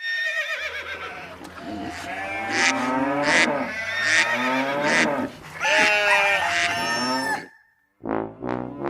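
Recorded farm-animal calls, bleating and mooing, overlapping for about seven and a half seconds. After a brief silence, a piano song intro starts near the end.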